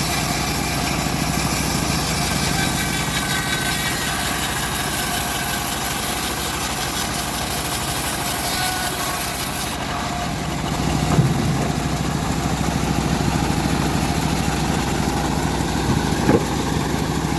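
Engine-driven homemade bandsaw mill running steadily, with a loud high hiss that drops away suddenly about ten seconds in while the engine keeps running, followed by a few sharp knocks.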